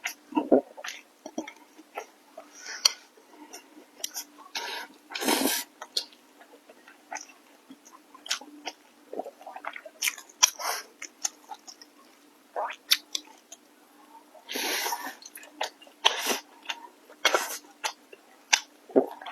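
Close-miked eating: wet chewing and mouth smacks on stir-fried starch noodles and rice, as irregular short clicks. Two longer noisy bursts come about five seconds in and again near fifteen seconds.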